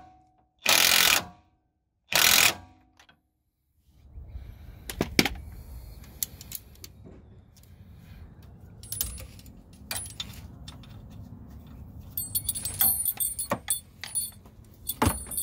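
Impact wrench fired in two short bursts, tightening the bolt on a new Jeep Grand Cherokee WJ track bar. After a pause come scattered metallic clicks and clinks as a ratchet strap's buckle is worked and released, busiest near the end.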